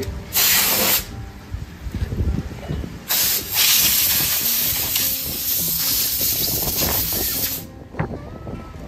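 Compressed-air shoe-cleaner gun blasting dirt off golf shoes. A short hissing blast of under a second comes first, then a long blast of about four and a half seconds.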